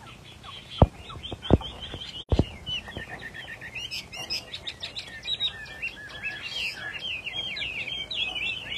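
Chinese hwamei singing a rapid, varied warbling song that grows fuller and continuous from about three seconds in. A few sharp knocks sound in the first couple of seconds.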